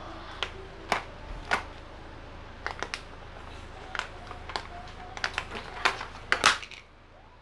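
Irregular clicks and taps of fingers prying at the plastic lid of a cardboard snack can, several in quick clusters, the loudest about six and a half seconds in.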